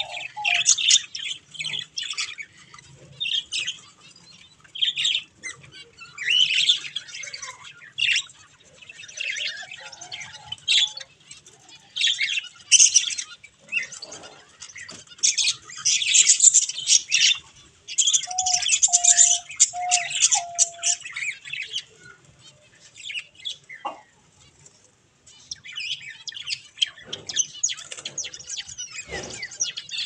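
Budgerigar chicks chirping: short, raspy, high-pitched calls repeated in irregular bursts. A little past halfway come four short, lower, steady notes.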